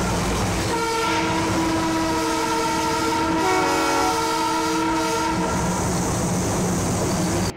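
Darjeeling Himalayan Railway train horn blowing one long, steady note of about four and a half seconds. A second horn at a different pitch overlaps it for about a second in the middle. A steady low rumble runs underneath.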